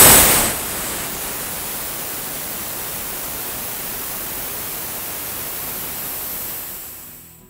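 Compressed air hissing out of the opened tank drain valve of a Porter-Cable pancake air compressor as the tank is emptied. It is loudest at first, settles about half a second in to a steady hiss, and fades away near the end as the pressure runs out.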